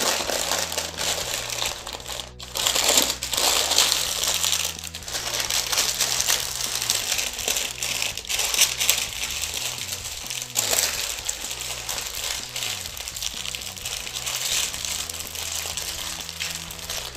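Baking paper crinkling and rustling as hands fold it and press it tightly around a slab of pork belly. The crinkling goes on throughout, with a short pause a couple of seconds in and louder stretches after it.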